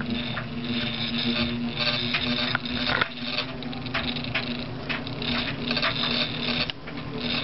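Lasko ornate spinner 52-inch ceiling fan running on high: a steady motor hum under a busy, irregular clicking, quite loud.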